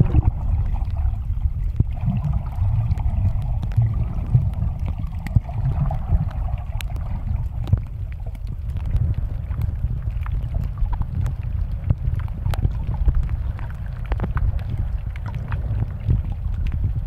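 Underwater sound picked up by a submerged camera: a muffled low rumble of water moving around the housing, with scattered sharp clicks and crackles. A faint hum fades out about six seconds in.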